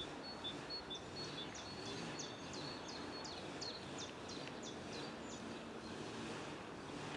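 Faint outdoor background noise with a small songbird singing: a run of quick high notes, each sliding downward, about three a second, from about a second in until about five seconds in.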